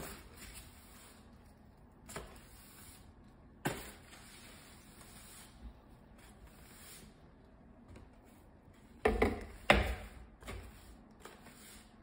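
Push broom bristles sweeping across a hardwood floor in short, separate swishes. A couple of louder knocks come about nine to ten seconds in.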